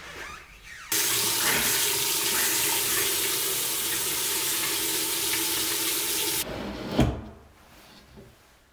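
Water running from a bathroom faucet into a sink basin, a steady splashing stream that starts suddenly about a second in and stops abruptly about five seconds later. Shortly after, a single sharp knock.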